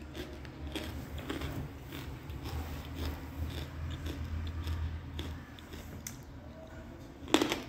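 Faint crunching and chewing of a piece of edible clay, with scattered small cracks and a sharper crack near the end, over a steady low hum.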